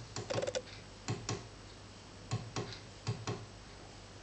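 A series of sharp, irregular clicks: a quick flurry of about five in the first half second, then clicks in pairs or threes about a second apart, over a faint steady hum.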